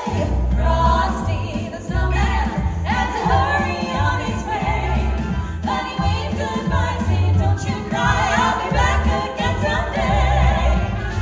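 A small vocal group singing a Christmas song in close harmony, backed by recorded accompaniment with a steady bass beat.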